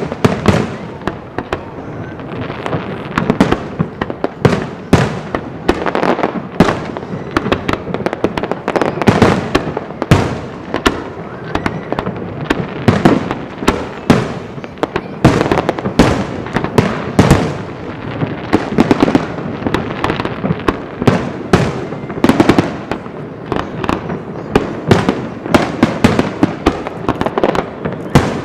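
Fireworks display: a dense barrage of bangs, several a second, going on without a break.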